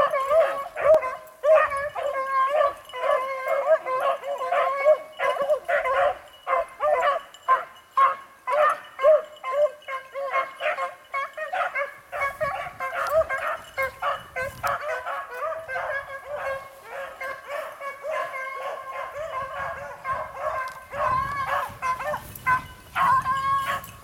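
A pack of beagles baying while running a rabbit, several hounds giving tongue at once in a continuous chorus of overlapping barks and bawls.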